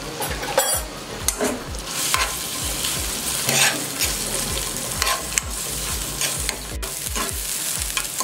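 Chopped onion sizzling in hot oil in a frying pan as it is stirred and sautéed. Irregular scrapes and knocks of the stirring utensil against the pan run through the steady sizzle.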